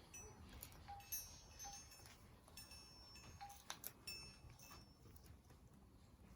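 Faint scattered clicks and snaps of an orange-winged Amazon parrot chewing on a Buddleia branch, with a few faint high chirps between them.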